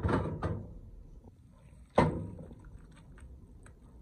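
Cooked macaroni and cheese being tipped and scraped out of a pot into a glass baking dish: a few knocks of the pot and utensil, the loudest about two seconds in, followed by lighter clicks as the pasta drops in.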